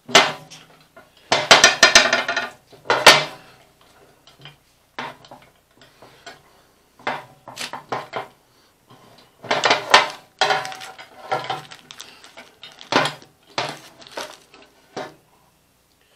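Clinks and rattles of a metal frost-free hydrant head and its small brass fittings being handled and turned by hand while a part is threaded in. The sound comes in several short bursts of clatter.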